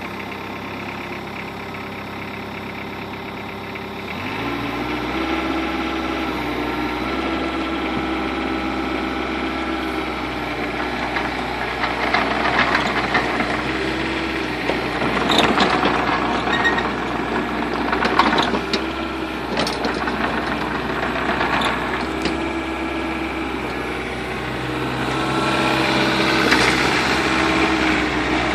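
Cat 305CR mini excavator's Mitsubishi S4Q2-T four-cylinder diesel running just after start-up, stepping up in speed about four seconds in. From about twelve seconds in, short knocks come and go over the engine as the machine is operated.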